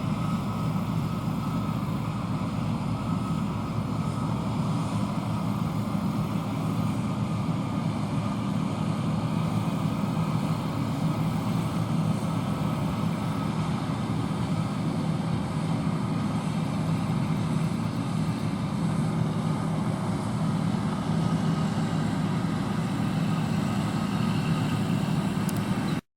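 John Deere combine running steadily while harvesting soybeans, a constant machine drone with an even hum.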